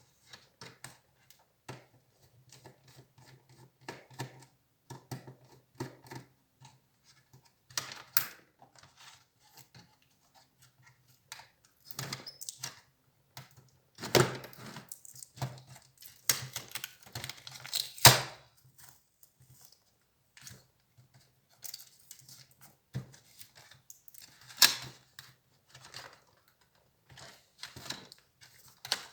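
Irregular clicks, taps and short scrapes of an HP Compaq 6910p laptop being taken apart by hand, its plastic and metal parts and tools knocking and sliding against each other. The loudest snaps come a little past the middle.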